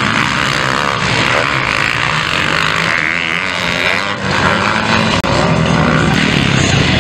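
Several motocross bikes racing in a pack, their engines revving up and down through the gears. The sound is loud and continuous, with a momentary break about five seconds in.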